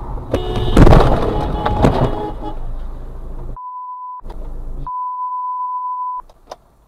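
A sudden loud burst of noise with a steady blaring tone through it, lasting about two seconds, from the dashcam car's near-collision with a car cutting across. Then two pure censor bleeps, a short one and a longer one, over muted audio.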